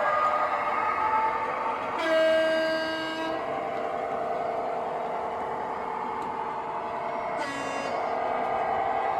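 Sound-fitted model diesel locomotive running, its engine drone steady, with a horn blast of about a second starting two seconds in.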